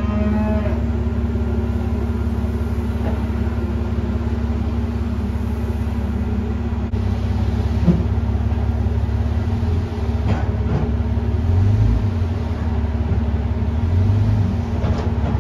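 A motor runs with a steady hum as a loaded dump trailer's bed tips up and sawdust slides out, with a few short clunks about halfway through and near the end.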